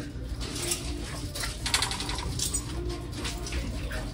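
Shop ambience: a steady low hum with scattered rustling and soft taps.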